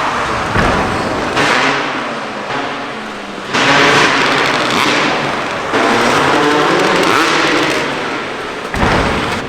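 Freestyle motocross dirt bike engines revving loudly, surging up suddenly several times.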